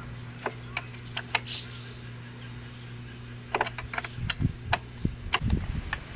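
Honda Super Cub's small single-cylinder four-stroke engine idling steadily, with scattered sharp clicks and taps. From about four seconds in, wind buffets the microphone.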